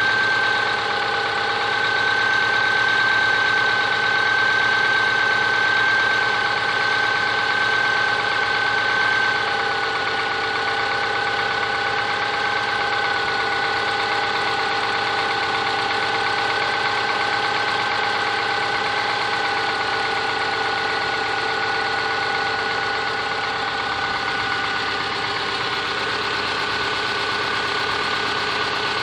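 Subaru Forester SG5's EJ25 2.5-litre flat-four engine idling with a knock, the engine knock the owner is recording. A steady high whine runs over the engine sound, and the level eases slightly about ten seconds in.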